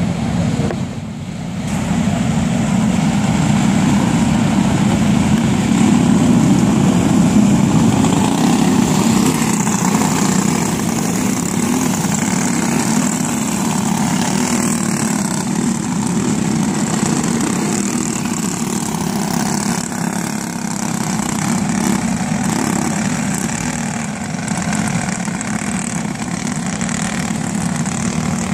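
A field of racing karts with Briggs & Stratton Animal four-stroke engines running together at a slow caution pace. The sound is a steady, blended engine note with no single engine standing out, a little louder a few seconds in.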